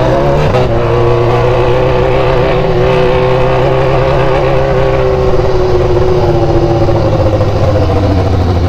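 BMW engine running through a very loud open exhaust, pulling up to a high steady drone that it holds for several seconds, then easing slightly near the end.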